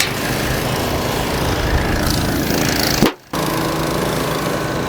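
Small gasoline engine of a walk-behind concrete power trowel running steadily. The sound cuts out briefly about three seconds in.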